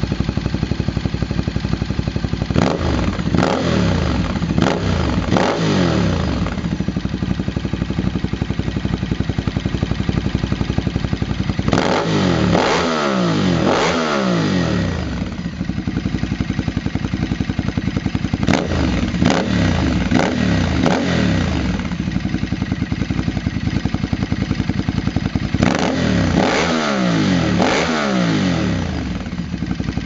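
Ducati Multistrada 1200's V-twin idling through a Termignoni slip-on exhaust with a LeoVince link pipe. The throttle is blipped in four groups, about 3, 12, 19 and 26 seconds in. Each group is three or four quick revs that rise and fall back to idle.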